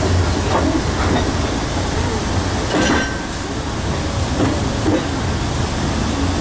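Narrow-gauge diesel-pushed passenger train running along the track, heard from inside a coach: a steady low rumble of wheels and running gear.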